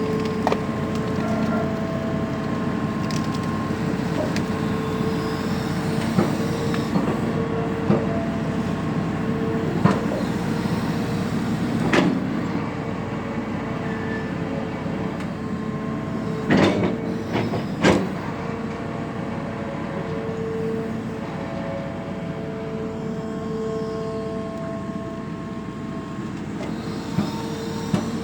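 Excavator running steadily, with a whine that comes and goes over the engine noise. A few sharp clacks stand out, the loudest about halfway through and two more a few seconds later.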